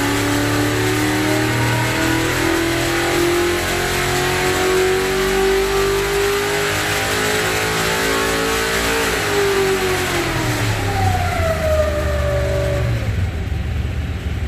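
1969 Corvette V8 race engine on a dyno pull, its pitch climbing steadily under load for about nine seconds, then dropping as the revs fall back over the last few seconds.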